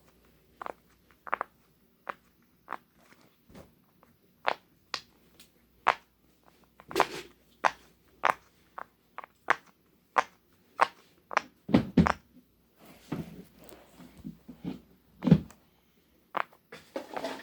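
Silicone pop-it fidget toy having its bubbles pressed one after another, popping as a string of sharp little clicks about two a second. A few heavier thumps come about three quarters of the way in.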